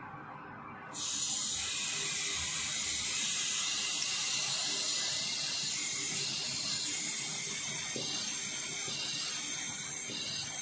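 Oxygen hissing steadily through an R2-01 cutting torch fed at about 5 kgf/cm², turned on about a second in. This is an injector check: the oxygen jet draws suction in the fuel-gas channel, and the injection is excellent.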